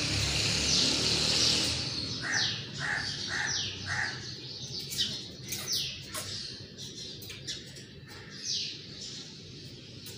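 Grey parrot calling: a quick run of short whistles that slide downward in pitch, about two a second, then a few more spaced calls with some sharp clicks. A loud rushing noise fills the first couple of seconds.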